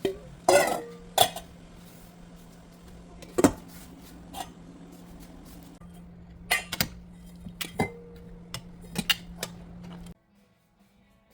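Metal pots and utensils clanking in a kitchen: a dozen or so sharp, irregular knocks, a couple of them ringing briefly, over a steady low hum. Everything cuts off abruptly near the end.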